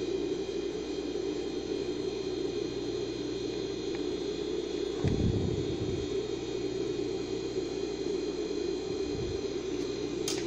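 Industrial sewing machine motor humming steadily while the machine sits idle, with a soft low thump about halfway through.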